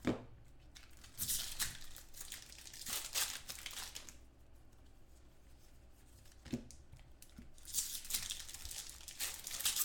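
Shiny foil trading-card pack wrappers being torn open and crinkled by hand, in several bursts of rustling. There is a short soft thump about two-thirds of the way through.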